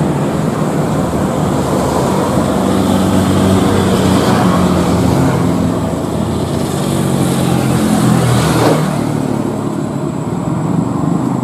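Jet airliner engines running loud and steady, a droning hum under a broad roar of jet noise. The drone shifts in pitch briefly near the end.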